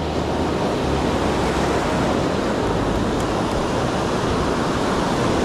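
Ocean surf washing onto the beach: a steady, even rush of breaking waves.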